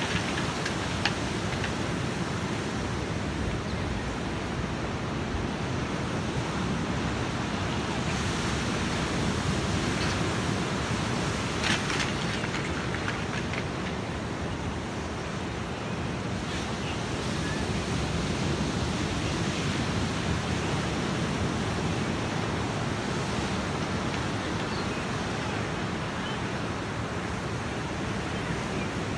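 Ocean surf breaking and washing up the beach: a steady, unbroken rush of waves.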